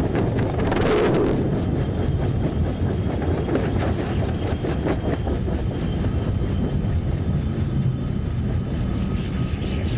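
A small helicopter's engine and rotor running, with heavy wind buffeting the microphone. There are scattered knocks and clatter throughout, and a louder surge about a second in.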